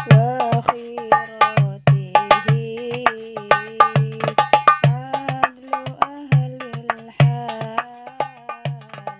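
A darbuka played by hand in a quick, busy rhythm, mixing deep doum strokes with sharp tek slaps. A sustained melody line that glides between held notes runs alongside the drumming.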